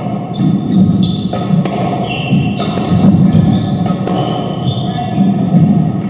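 Squash rally: a ball smacked by racquets and rebounding off the court walls, sharp echoing hits in quick succession, about two a second.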